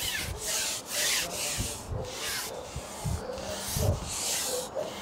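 Cloth rustling and rubbing against the microphone in a series of short brushes about every half second, with a few low handling thumps.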